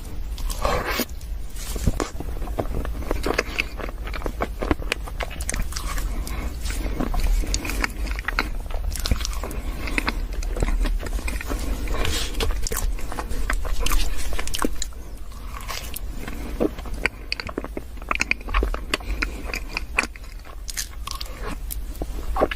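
Close-miked eating of chocolate caramel profiteroles: repeated bites and chewing, with frequent crunches and crackles from the coated pastry, over a steady low hum.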